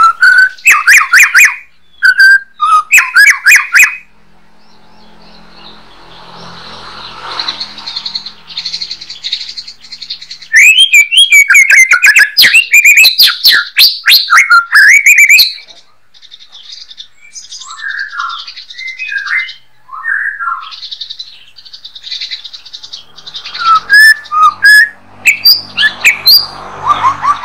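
White-rumped shama singing: loud, rapid, varied phrases of whistles and chatters in three bursts (at the start, in the middle and near the end), with softer whistled notes and chatter between them.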